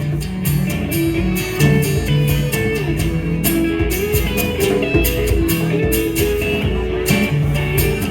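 Live band playing a guitar-led instrumental passage of a rock song, with dense rhythmic strumming and a steady beat.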